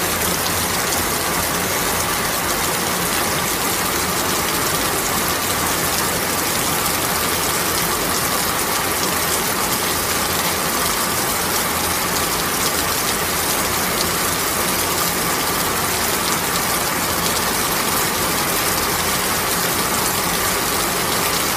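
Rain falling steadily: a dense, even hiss and patter of drops.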